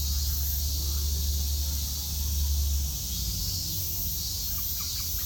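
Outdoor ambience: a steady high-pitched hiss, a low rumble that stops about three seconds in, and faint distant voices.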